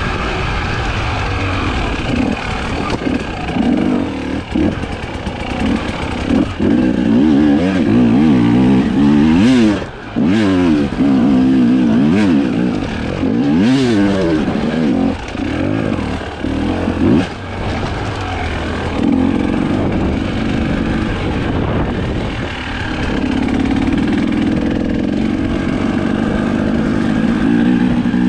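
Husqvarna TE 300i two-stroke enduro engine revving up and down as it is ridden off-road, its pitch rising and falling over and over with the throttle. The throttle is shut briefly about ten seconds in and again a few seconds later.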